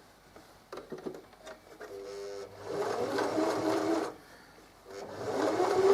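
Electric sewing machine stitching a wide zigzag, with a walking foot fitted, in short runs. A few clicks come first, then the motor runs steadily for about a second and a half, stops, and starts again near the end.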